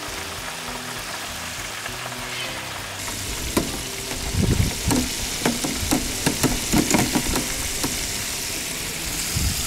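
Flour-coated venison ribs deep-frying in hot oil in a propane fryer: a steady sizzle that grows louder about three seconds in, with a run of sharp knocks and clatters through the middle.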